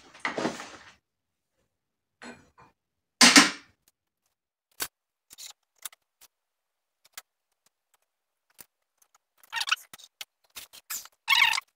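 Metal parts clicking, knocking and clattering as the crankshaft and gearbox shafts of a two-stroke motocross engine are handled and fitted into an aluminium crankcase half. Scattered single clicks, with longer clatters about half a second in, about three seconds in, and twice near the end.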